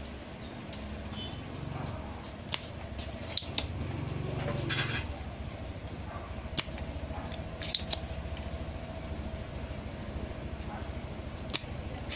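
Spring-loaded desoldering pump (solder sucker) snapping as its plunger is cocked and fired to suck solder off potentiometer pins, about half a dozen sharp clicks a second or more apart, over a steady low hum.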